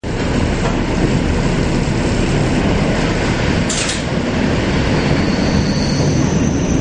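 Moving train heard from inside the carriage: a steady rumble of wheels on track, with a short rush of noise just before four seconds as it passes under a bridge, and a faint high whine about five seconds in.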